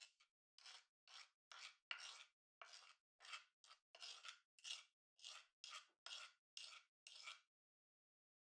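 A spoon scooping and scraping granulated sugar out of a wooden bowl into a glass mixing bowl: soft, crunchy, gritty scrapes, about two a second, stopping a second before the end.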